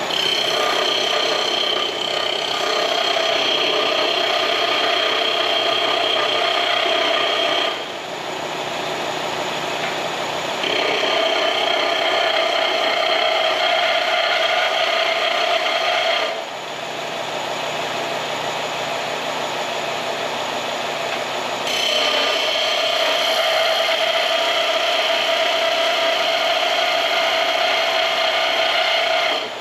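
Angle grinder grinding steel, its motor whining steadily throughout, with three long spells of heavier grinding and lighter contact between them.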